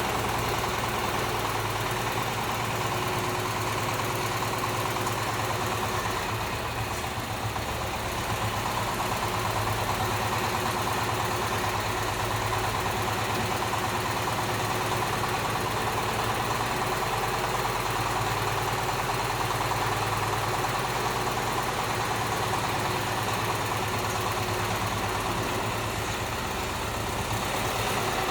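Small engine of a crawler micro cultivator (mini tractor) running steadily at an even speed, its level easing slightly twice.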